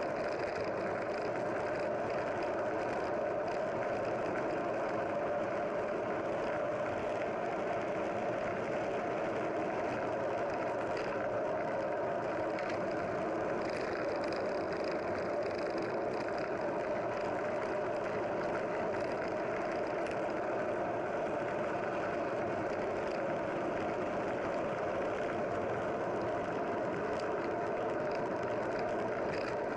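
Steady, unbroken noise of a running vehicle.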